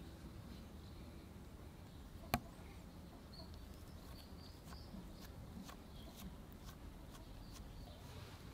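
Quiet woodland ambience with faint, scattered bird chirps over a low steady background. One sharp click about two seconds in and a run of faint ticks in the second half.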